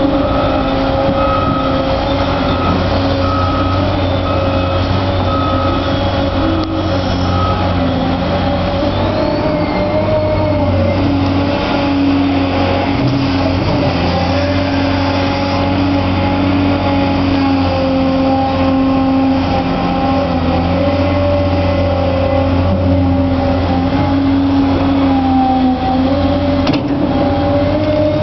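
Caterpillar 365C L hydraulic excavator at work, its C15 diesel engine running loud and steady under digging load, the engine note wavering slightly as the boom and bucket move.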